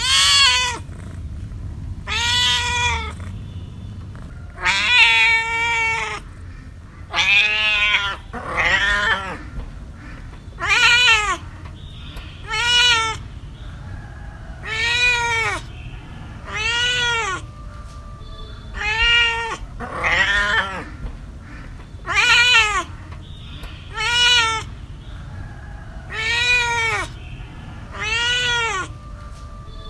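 Cat meowing over and over, about fifteen loud meows roughly two seconds apart, each rising and then falling in pitch.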